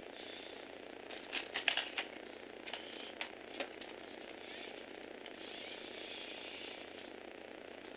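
Small electric motor whirring through plastic Lego Technic gears as the model's four-wheel steering works. Sharp plastic clicks come in a quick cluster about a second and a half in, and a few more around three seconds.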